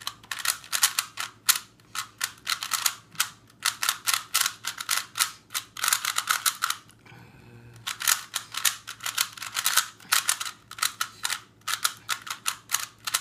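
Plastic 3x3 Rubik's-style puzzle cube being turned fast by hand: rapid clacking of its layers in quick bursts, with a pause of about a second around the middle.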